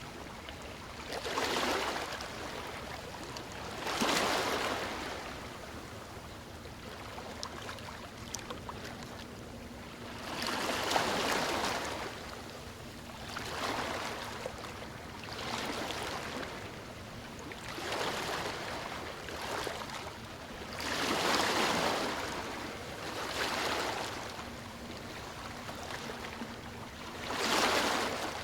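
Sea waves breaking and washing on a shore, the surf rising and falling in a swell every two to seven seconds over a steady wash of water.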